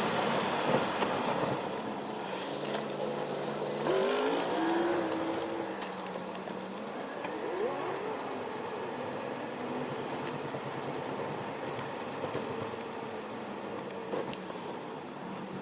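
A car driving, with steady road and engine noise and a few rising and falling engine tones.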